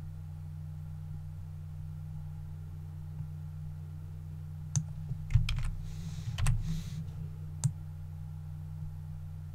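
A handful of sharp computer mouse and keyboard clicks near the middle, with a brief rustle among them, over a steady low hum.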